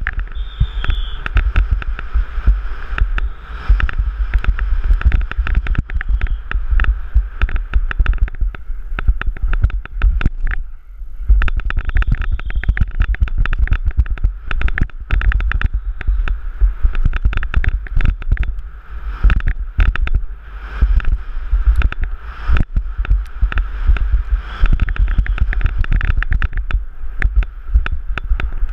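Downhill mountain bike running at race speed over a dry, rough dirt track: a constant dense rattle and knocking of the bike and tyres over the ground above a low rumble. The rattle drops away for about a second around ten seconds in.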